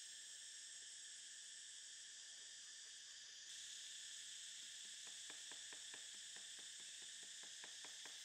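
Steady, high-pitched insect drone. From about five seconds in it is joined by a run of faint, quick crackles, roughly four a second, as juices pop on salmon grilling over charcoal.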